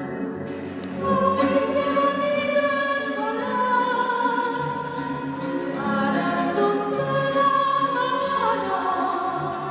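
Music with a choir of voices singing long, held notes that slide from one pitch to the next.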